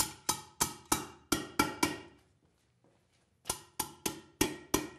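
Hand hammer striking a hot iron strap over a tin can on the anvil horn, crimping the strap tight around the can. A quick run of about seven ringing blows, a pause of about a second and a half, then five more.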